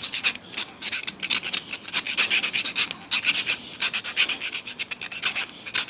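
Round file rasping in quick repeated strokes against the inside of a freshly cut brass tube's edge, deburring it.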